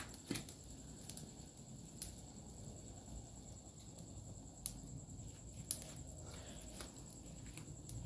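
Chicken frying in oil in a pan over a small wood fire: faint sizzling with a few sharp pops and crackles.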